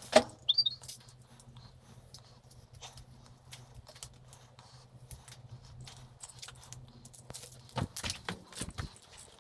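Pieces of scrap metal clinking and knocking as they are handled and sorted: a couple of sharp knocks at the start, scattered lighter clicks, then a quick run of louder knocks near the end, over a steady low hum.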